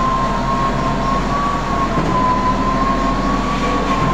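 Heavy machine's diesel engine running steadily as it holds a suspended steel duct, with a steady high whine that wavers slightly in pitch over a low hum.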